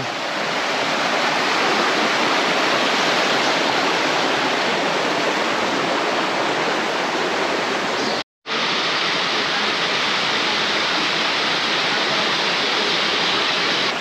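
Stream water rushing steadily, a loud even hiss of flowing water. The sound cuts out completely for an instant a little past eight seconds in, then resumes unchanged.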